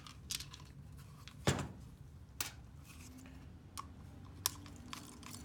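A hard plastic tourniquet pouch and its mounting plate being handled and taken apart: scattered clicks and light knocks, with one louder knock about a second and a half in.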